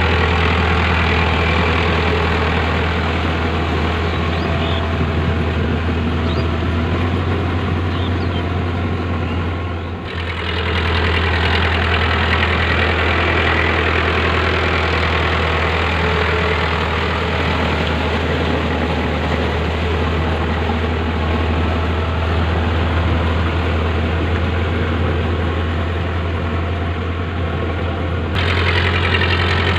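Powertrac Euro 55 tractor's diesel engine running steadily under load while pulling a rotavator through wet paddy-field mud.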